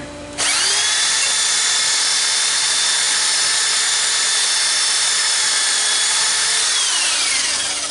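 Electric drill starting about half a second in and running at a steady high whine while enlarging a dowel hole in the wooden bench, then winding down, its pitch falling, near the end.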